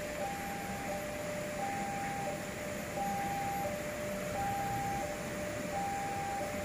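Railway level crossing warning alarm sounding for an approaching train: two electronic tones alternating high and low in an even, repeating pattern, each tone held a little under a second.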